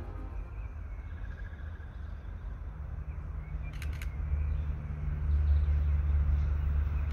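Three diesel-electric locomotives running light and approaching from a distance: a low engine rumble and hum that grows louder from about halfway through. A pair of short clicks about four seconds in.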